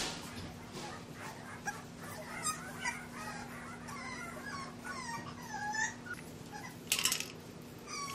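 English bulldog puppies whimpering and squealing as they wrestle, many short, high-pitched cries one after another over a steady low hum. A short burst of noise comes about seven seconds in.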